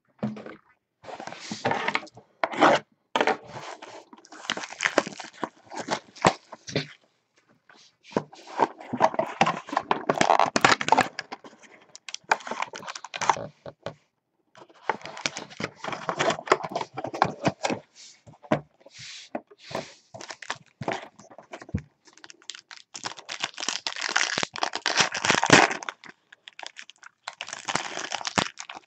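A cardboard hobby box opened by hand and a foil trading-card pack wrapper torn open and crinkled. The sound comes as repeated bursts of rustling with short pauses, plus a few sharp crackles.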